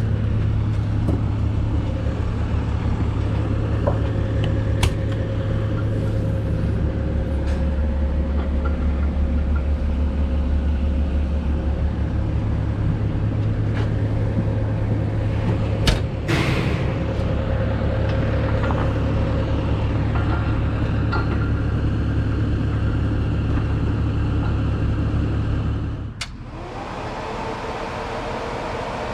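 A motor vehicle's engine running steadily with a low drone. About three seconds before the end it changes abruptly to a quieter, steady hum with a higher tone in it.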